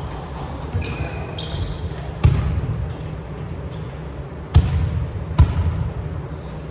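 A volleyball being struck three times in a rally, sharp smacks that echo in a gym hall. There are a few short squeaks about a second in.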